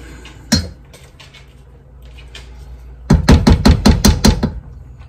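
A spatula knocking against a stainless steel mixing bowl of shredded chicken and cauliflower rice. There is a single knock about half a second in, quieter stirring after it, then a quick run of about nine knocks about three seconds in.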